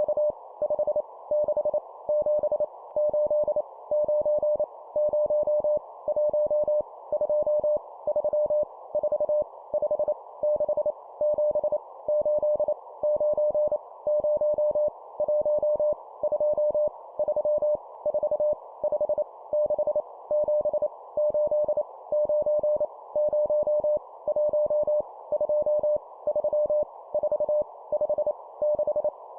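Morse code (CW) sending numbers at 25 words per minute: a steady mid-pitched beep keyed on and off in quick dots and dashes, over a steady hiss.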